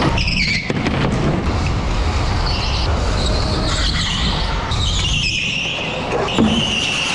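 Rental go-karts driving hard on an indoor track, heard from the driver's seat: a continuous running noise with high whining tones that rise and fall several times as the kart speeds up and slows through the corners.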